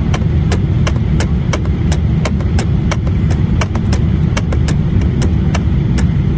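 Airliner cabin noise on short final approach: a steady low rumble of the jet engines and rushing air, heard from a window seat inside the cabin. Faint quick ticks run through it, about three or four a second.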